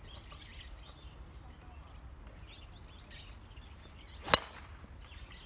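A driver strikes a golf ball off the tee: one sharp crack about four seconds in. Birds chirp faintly in the background.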